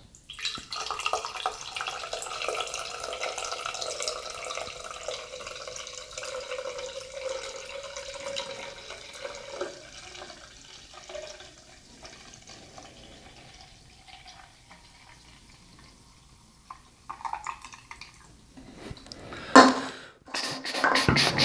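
Carbonated lemon-lime drink being poured into a glass, splashing and fizzing for about ten seconds before tailing off; a sharp knock near the end.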